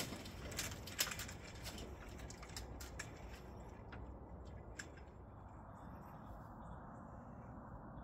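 Faint outdoor background: a low steady rumble, with scattered sharp clicks over the first few seconds that then die away.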